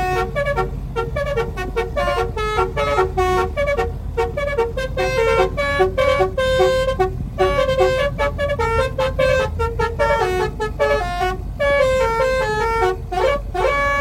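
Telolet horn, a multi-note musical air horn fitted to a car, playing a quick tune of short toots that jump up and down in pitch.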